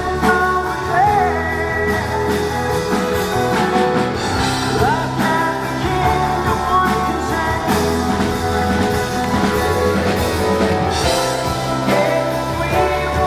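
A rock band playing live with a singer, with guitar, bass and drums under the vocal line.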